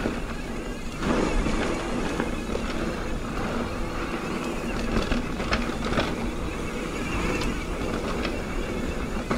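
Mountain bike rolling down a dirt trail: steady wind rumble on the microphone and tyre noise, with scattered clicks and rattles from the bike.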